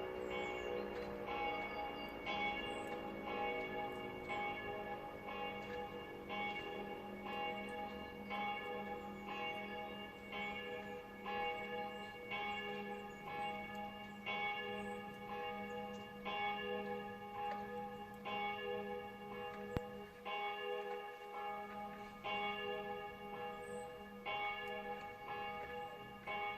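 A church bell ringing, struck over and over at about once a second. Underneath it in the first couple of seconds, an electric motor siren, presumably an Auer LS 10, winds down in a falling whine and fades out.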